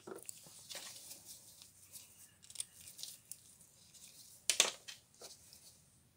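Handling noise: gloves rustling and light clicks as a small wooden-handled screwdriver is set down on and picked up from a wooden bench, with one sharper knock about four and a half seconds in.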